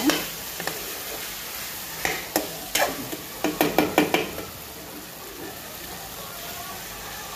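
Potatoes and cauliflower frying in a metal kadhai, sizzling steadily, while a metal spoon stirs them. The spoon scrapes and clinks against the pan several times in the middle, and the sizzle is quieter over the last few seconds.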